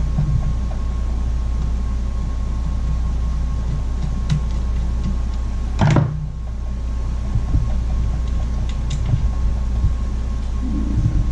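Light clicks and clatter of tools and chainsaw parts being handled on a workbench, with one louder knock about six seconds in, over a steady low hum.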